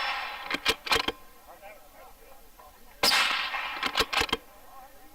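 Two rifle shots from a 6.5 Creedmoor: the tail of one fading at the start, and a second shot about three seconds in. Each shot rings on for about a second and is followed by two or three short sharp cracks.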